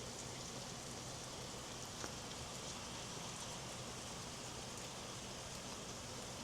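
Steady rain falling, an even hiss with one faint tap about two seconds in.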